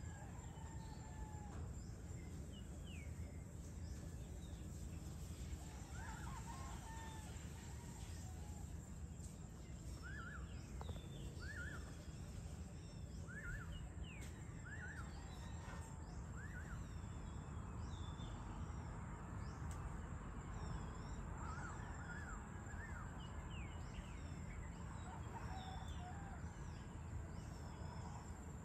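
Outdoor evening ambience: many birds calling with short, repeated chirps and whistles, over a steady high insect whine and a constant low rumble.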